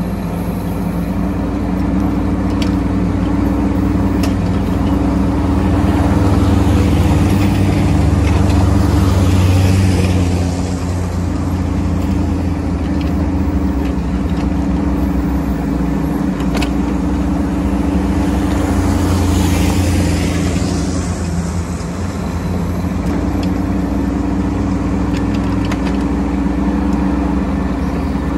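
Bobcat E10 mini excavator's diesel engine running steadily. It swells twice as the machine works, each time with a rushing hiss over it.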